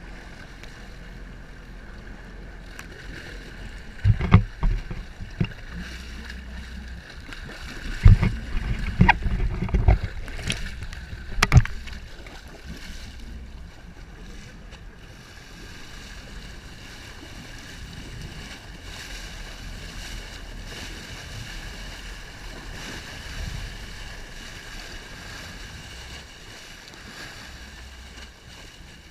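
Fishing boat's engine running steadily at sea. Several loud knocks come about four seconds in and again in a cluster about eight to twelve seconds in.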